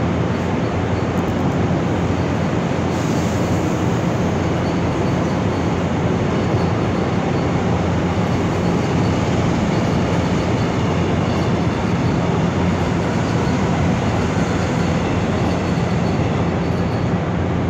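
Passenger train running past on a far track, its wheels rolling over the rails in a steady noise.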